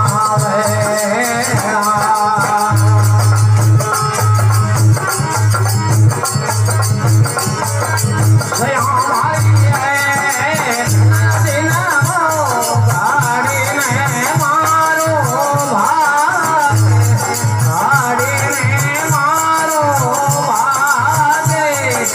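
Rajasthani devotional bhajan music: a bending, ornamented melody over a repeating low drum beat and steady shaker-like jingling percussion.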